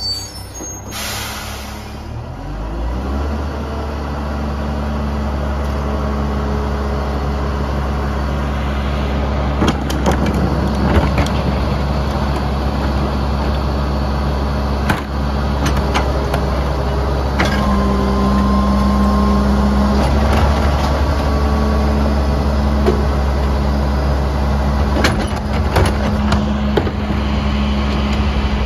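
Rear-loading garbage truck's diesel engine speeding up a couple of seconds in and holding a steady higher speed while its hydraulics run. Scattered knocks and bangs come from a wheeled cart being tipped into the rear hopper, with a brief whine partway through.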